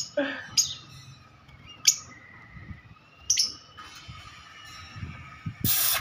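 Rosy-faced lovebird giving four short, sharp, high-pitched chirps, irregularly spaced over the first few seconds. A loud, harsh, noisy burst comes just before the end.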